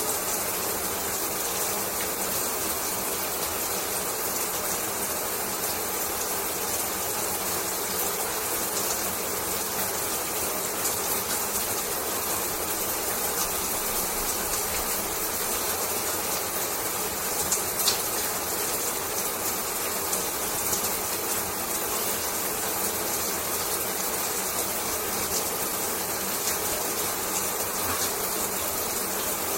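Shower running steadily: water spraying and splashing in an even hiss, with a few faint ticks and a slightly louder splash about two-thirds of the way through.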